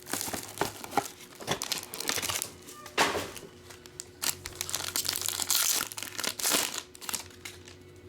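Plastic wrapping on a box of trading cards crinkling and tearing as it is pulled open, in quick irregular crackles that stop shortly before the end.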